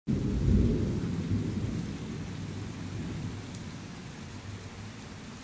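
Thunder rumbling, loudest about half a second in and slowly dying away, over steady heavy rain falling on pavement and parked cars.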